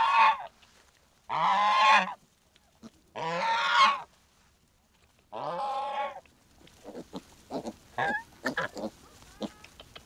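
Domestic goose honking: four loud, drawn-out calls, each lasting under a second, over about six seconds, followed by softer short sounds.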